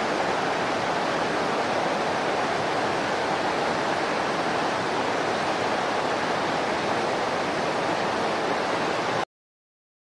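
Steady rush of a fast-flowing stream, cutting off suddenly about nine seconds in.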